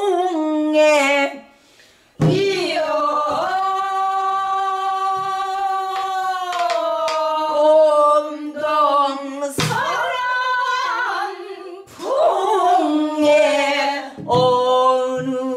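A woman singing pansori in the full-throated traditional style: a long drawn-out phrase with a held, wavering note, broken into several sung phrases. A few sharp strikes fall between the phrases.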